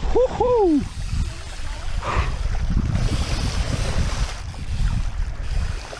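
A short whoop, then a loud steady rushing: wind buffeting the microphone mixed with the splash and swish of BMX tyres riding through standing water.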